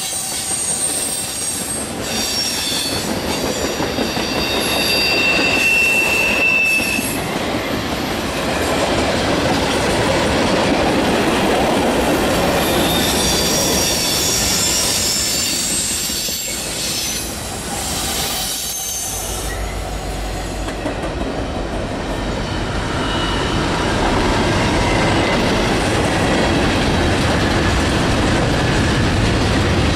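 A long freight train rolls past: tank cars, covered hoppers and double-stack container cars rumble along the track, with high-pitched wheel squeal in the first half. About two-thirds of the way through, a deep diesel rumble joins in as the mid-train locomotives pass.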